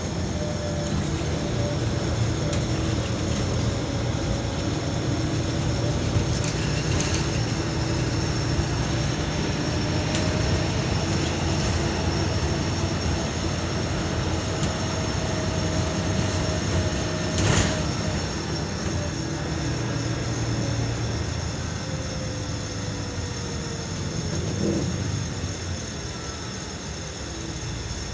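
Cabin sound of a Volvo B12BLEA articulated bus under way: steady diesel engine and road noise with a faint whine that drifts slowly in pitch. A single sharp click is heard a little past halfway.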